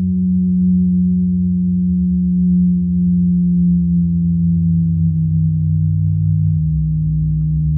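Electric bass guitar holding deep, sustained, almost pure tones. The main note slides slowly down partway through, and a lower note comes in near the end.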